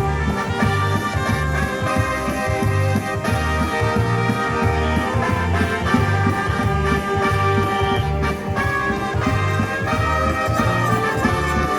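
Live band music: an upbeat tune played over a steady, pulsing bass line.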